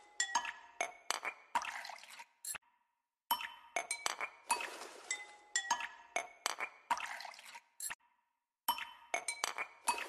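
Background music of light, plinking chime-like notes in a repeating phrase, broken by two brief pauses.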